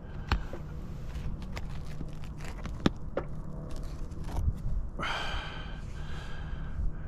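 Scattered clicks and scuffs of footsteps and handling on an asphalt-shingle roof, the sharpest nearly three seconds in, over a low rumble of wind on the microphone.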